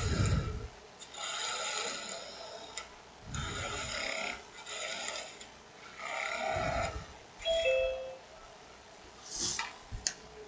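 Spindle gouge cutting the end of a spinning aspen blank on a wood lathe in a series of short passes, taking off the waste nub at the tailstock end. A brief squeak comes about three-quarters of the way through.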